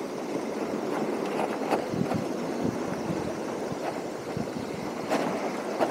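Steady wash of sea and wind noise on the microphone, with a few faint ticks.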